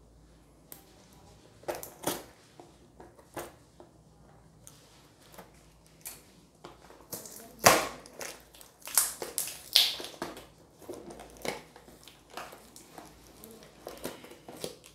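A taped cardboard box being cut open with scissors: irregular snips, scrapes and crinkling of packing tape and cardboard, loudest in a run of sharp scrapes about halfway through.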